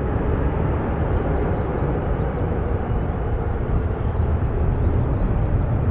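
Airbus A380 jet engines at departure power: a loud, steady roar, heaviest in the low end.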